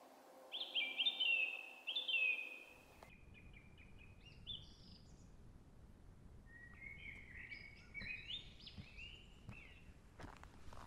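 Woodland songbirds singing. There is a loud run of quick, falling notes in the first couple of seconds, then quieter, more varied song. A few footsteps on a dirt path start right at the end.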